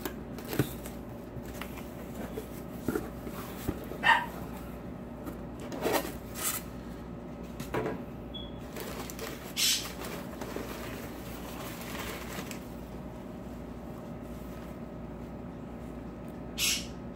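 Handling sounds of a cardboard shipping box being opened: cutting and pulling at the box, crumpled packing paper rustling and a cloth bag being handled, heard as scattered rustles and clicks with a few brief louder scrapes. A short, sharp sound about four seconds in is the loudest.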